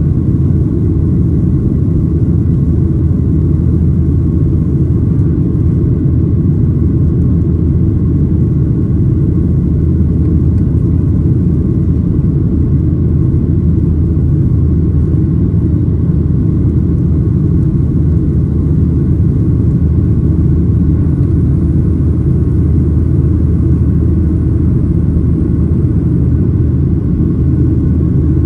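Steady rumble of a Boeing 737-900ER's CFM56-7B jet engines and airflow, heard inside the passenger cabin, holding an even level throughout with faint steady tones above it.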